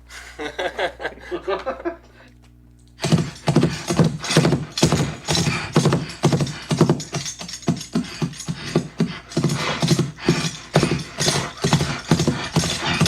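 Foley horse track played back: hoof props clip-clopping in a rapid, continuous run of knocks from about three seconds in, layered with a jingling bridle and vocal horse snorts. A voice is heard briefly at the start.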